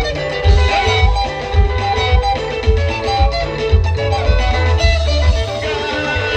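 Live band music: guitar over a heavy, pulsing bass beat with drums.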